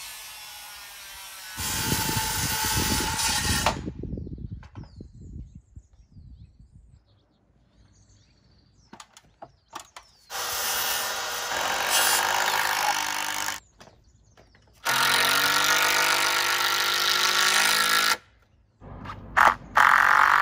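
Handheld power drill driving screws through cedar backer rails into wooden fence posts, in four runs of a few seconds each that start and stop abruptly, with a few faint knocks between them.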